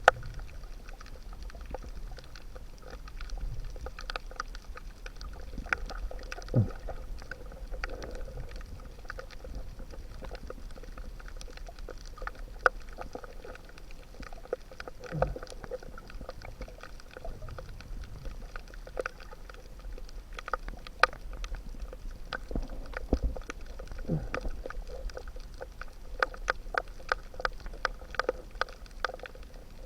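Underwater ambience: a steady low rumble with many scattered sharp clicks and crackles, and a few short low sounds that fall in pitch.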